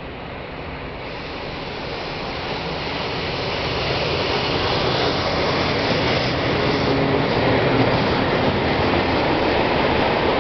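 An SNCF Fret BB 75000 diesel-electric locomotive approaches and passes with its diesel engine running, growing louder over the first several seconds. A string of grain hopper wagons then rolls by with a steady rumble of wheels on the rails.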